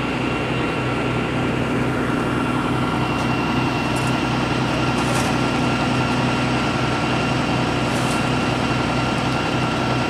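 A vehicle engine idling steadily: an even hum with a constant faint whine above it, and a few faint short ticks.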